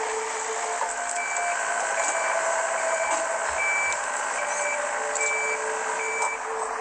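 Excavator running with its travel alarm beeping, a high beep a little more often than once a second, starting about a second in and stopping near the end, over the steady note of the diesel engine.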